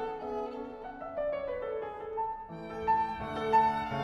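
Background music: violin melody over piano.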